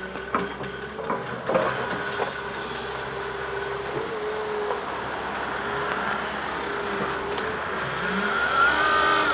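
Volvo EW 180 D wheeled excavator's diesel engine running steadily, with a few sharp clanks in the first couple of seconds and a short rising whine near the end.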